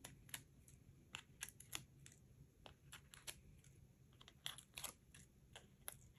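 Release paper being peeled off foam adhesive tape squares on a cardstock piece: faint, irregular little ticks and crackles of paper lifting and being handled.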